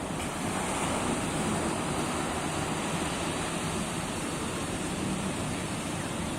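Sea surf washing onto a beach, a steady rush of waves.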